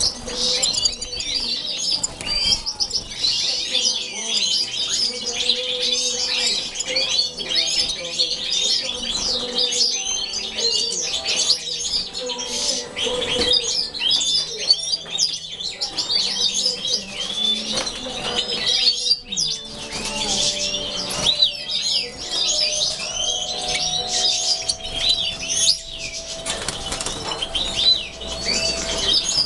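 A room of caged European goldfinches twittering and calling continuously, many birds at once, in quick liquid trills and chirps, with wings fluttering as they flit about the cages.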